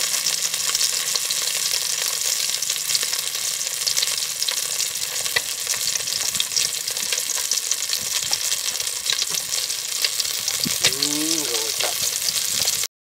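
Food frying in hot oil: a steady sizzle with many small crackles. A voice is heard briefly near the end.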